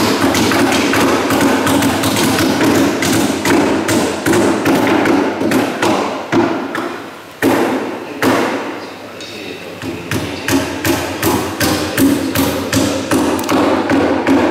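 Hammers striking wood in quick, irregular blows, several going at once, as the wooden king boat is built. The hammering pauses briefly about halfway through, then picks up again.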